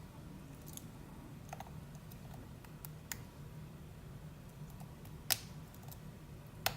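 Small metallic clicks and ticks of a slimline hook pick working the pins of an ASSA d12 cylinder under tension: a few faint scattered clicks, then two sharper clicks about five and a half seconds in and near the end, which the picker takes for a pin setting.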